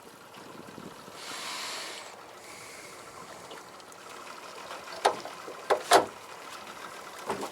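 Sounds aboard a small fishing boat at sea: a brief hissing rush of water about a second in, then four sharp knocks near the end, as of gear or the catch striking the hull.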